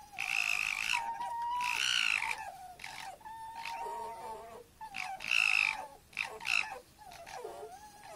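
Red foxes making a run of high, wavering whining calls, one after another with short gaps between them.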